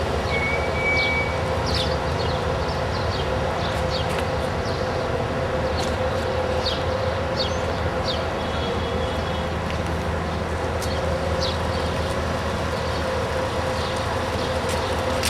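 Steady rumbling vehicle noise with a constant hum, overlaid by many short, high chirps or squeaks.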